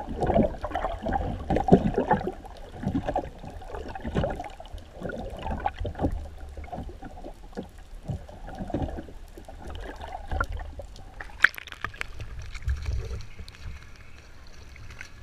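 Muffled underwater sloshing, bubbling and knocks heard through a GoPro's housing held below the surface. About eleven and a half seconds in the camera comes out of the water and the sound changes to surface splashing and hiss.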